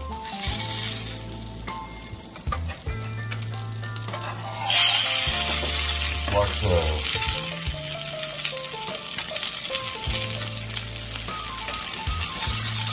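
Smashed baked potato halves sizzling as they fry in hot oil in a frying pan, pushed and pressed with a metal spatula. The sizzle swells sharply about five seconds in and stays loud.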